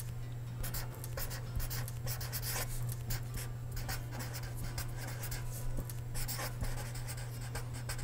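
Pen writing on paper in cursive, the nib scratching across the page in many quick strokes, over a steady low hum.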